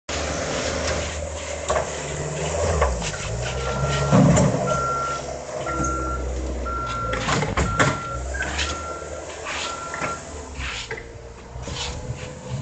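Skid steer loader's diesel engine running under load, with its reverse alarm beeping about once a second, seven beeps in the middle stretch as it backs up. Clanks and knocks from the machine and bucket are mixed in.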